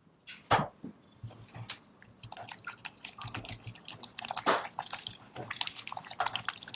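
Choux pastry paste being beaten with a spatula as beaten egg is worked into it in a pot. It makes quick, irregular wet squelches and sticky slaps, with two louder smacks about half a second in and about four and a half seconds in.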